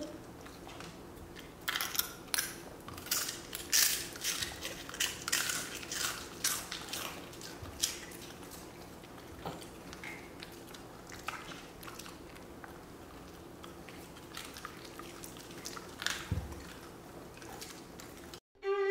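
Crisp crunching and chewing of strawberry wafer cookies by a dog and a baby, close to the microphone. A quick run of crunches fills the first half, then the bites come only now and then.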